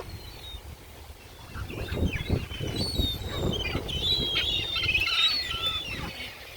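Wild birds chirping, many short high calls overlapping and growing busier after about two seconds, with soft low thumps and rustles underneath.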